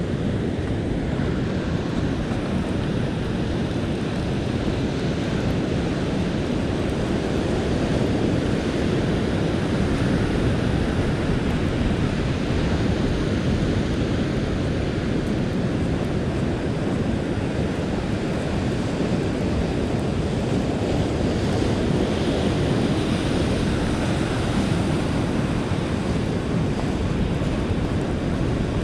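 Ocean surf washing onto a sandy beach, a steady rush with wind buffeting the microphone and no distinct separate sounds.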